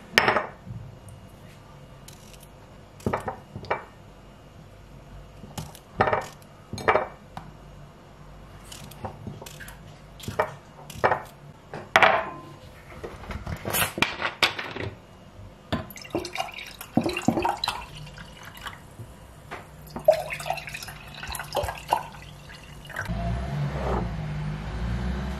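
Kitchen clatter: a utensil clicking against a plastic tub and a glass dish as pickles are served, glasses knocked down on the countertop, then orange juice poured into two glasses, with a low rumble near the end.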